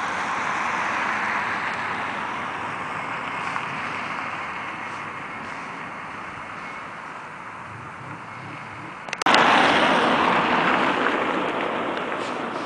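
Wind rushing steadily, then jumping suddenly louder after a couple of clicks about nine seconds in, and slowly easing.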